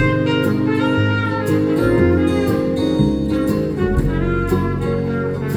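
A live band playing an instrumental passage of the song with no vocals: held melody notes over a bass line, with regular drum strikes.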